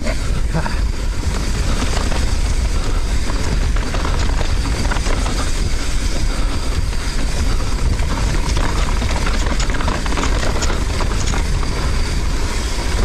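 Mountain bike riding fast down a dirt trail: wind on the microphone makes a steady low rumble while the tyres crunch over dirt and rock and the bike rattles in quick, irregular clicks.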